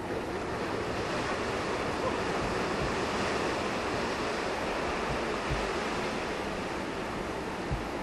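Steady rushing of churning water and wind, with a couple of low wind buffets on the microphone in the second half.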